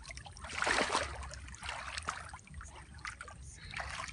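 Water trickling and splashing off a gill net as it is lifted and handled in shallow water, with a louder splash about a second in.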